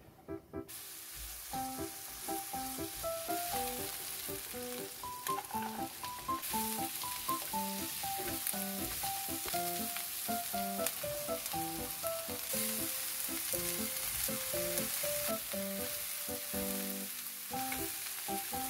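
Diced vegetables (potato, carrot, then sweet pumpkin) sizzling as they stir-fry in hot oil in a nonstick wok, starting under a second in as they hit the pan, with the occasional scrape of the spatula. Light background music plays throughout.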